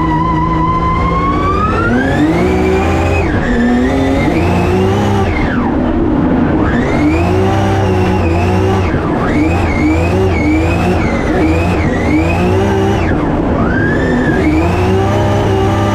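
Drift car's engine heard from inside the cockpit, holding a steady note and then revving up about a second in. It then rises and falls over and over as the throttle is worked through the drift, with short drops in between, over rough tyre and road noise.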